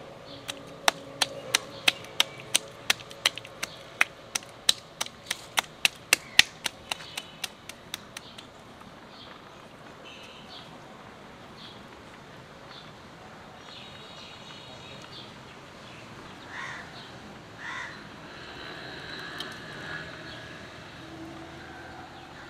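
A steady run of sharp clicks, about three a second, lasting about eight seconds, then crows cawing a few times with other birds calling.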